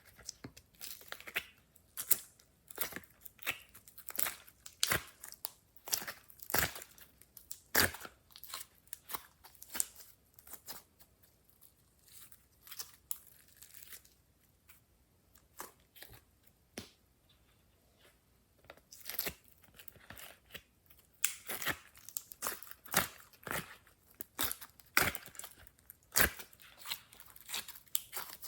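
Glossy slime being worked by hand, with clay mixed in: irregular sticky pops, clicks and crackles, easing off for a few seconds in the middle before picking up again.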